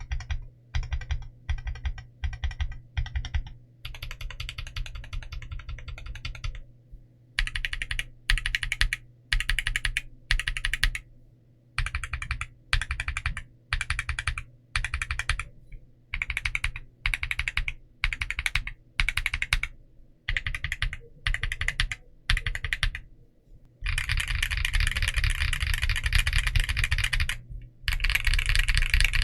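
Typing on a mechanical keyboard with stock Akko Creamy Purple Pro short-travel tactile switches and Cherry-profile PBT double-shot keycaps, in an Akko MOD008 board. Short runs of keystrokes with brief pauses, then a long, fast, unbroken run near the end.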